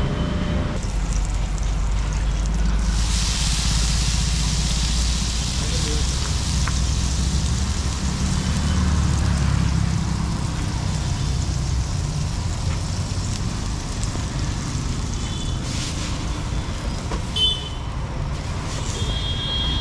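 Water sizzling on a hot flat iron dosa griddle, starting about three seconds in and dying away after some seven seconds, over a steady low rumble of road traffic. A few short sharp sounds near the end.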